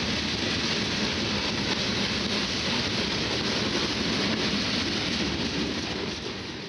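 Freight train cars rolling past close by: a steady rumble and rush of steel wheels on rail, fading out near the end.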